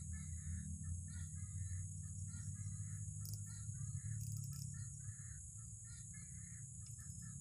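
Birds calling over and over in the background, short calls a few times a second, over a steady high insect hum and a low rumble.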